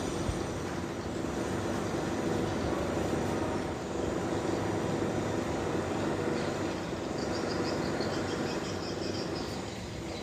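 Steady low mechanical rumble with a faint hum, like passing traffic or machinery in the background.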